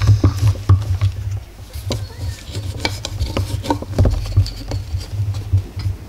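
Scattered light clicks and knocks of parts being handled at a motorcycle's handlebars and fork top, over a low, uneven hum.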